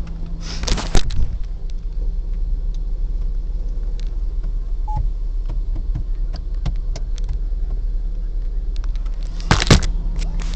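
Car engine idling, a steady low hum heard inside the cabin, with knocks and rustles from a phone camera being handled about a second in and again near the end.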